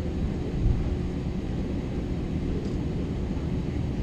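Airbus A321 cabin noise while taxiing: a steady low rumble from the idling jet engines and the roll over the taxiway, with a steady hum, and a brief low thump about two-thirds of a second in.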